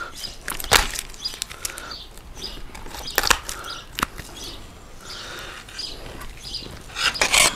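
Kitchen shears cutting a spit-roasted chicken in half, with a few sharp snaps of bone and crisp skin over soft rustling and handling of the bird.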